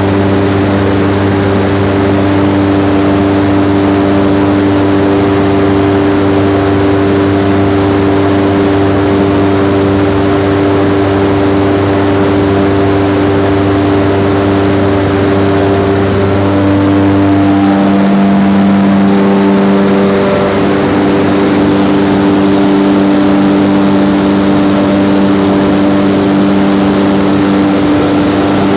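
Mine main mechanical ventilator (main ventilation fan) running with a loud steady drone made of several steady tones over a rushing of air. About two-thirds of the way through, the deepest hum drops away and a slightly higher tone swells for a few seconds.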